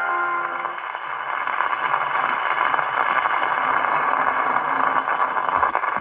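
Surface noise of a 78 rpm shellac record: the last note of the song fades out in the first second, then the needle runs on with a steady hiss and dense crackle.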